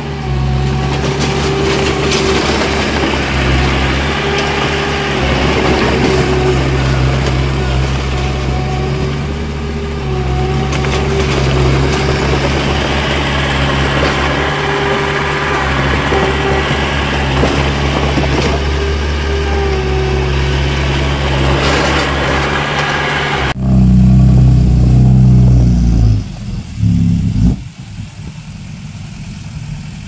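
A heavy machine's diesel engine running steadily under broad mechanical noise. About 23 seconds in, the sound cuts abruptly to a louder, deeper engine note, which breaks off a few seconds later.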